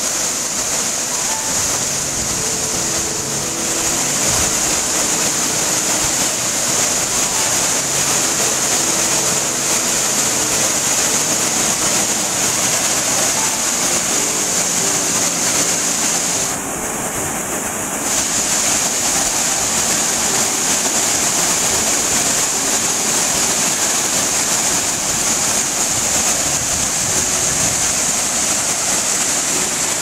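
Waterfall plunging into a pool: a loud, steady rush of falling water, briefly duller for about a second just past halfway.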